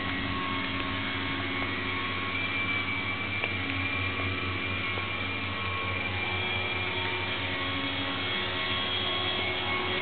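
A steady mechanical hum with several held tones, unchanging in level.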